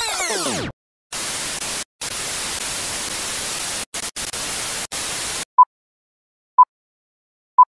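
Television static hiss that cuts out briefly a few times, then short one-pitch countdown beeps once a second, three of them, from a film-leader countdown. It opens with the end of a sweeping sound effect of many gliding pitches.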